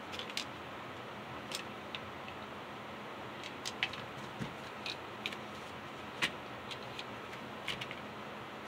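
Scattered small clicks and light rattles of a plastic model locomotive body shell being pulled off its metal chassis and handled, with loose window pieces rattling inside the shell.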